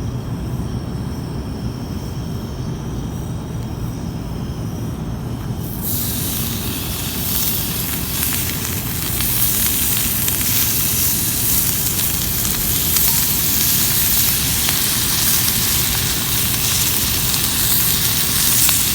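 A low steady rumble, then about six seconds in a loud sizzle starts and keeps going: bacon frying in a hot cast iron skillet.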